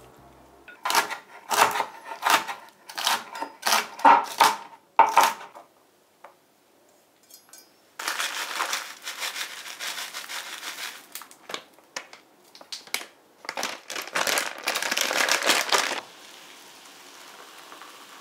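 A plastic bag crinkling in two spells as dried shrimp and salted kelp are shaken out of it into ceramic bowls, after a run of about eight short rustling strokes. Near the end comes a soft steady pour of hot soy milk into a bowl.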